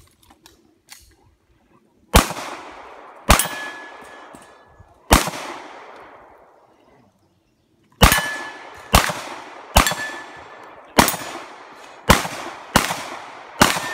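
Ten pistol shots fired one at a time: three a second or two apart, then after a pause of about three seconds seven more at about one a second. Several shots are followed by a brief ringing ping, the sound of a steel target being hit.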